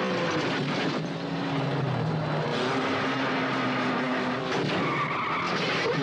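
Car engine running hard with road and tyre noise on an old film soundtrack. The engine note steps up in pitch about two and a half seconds in.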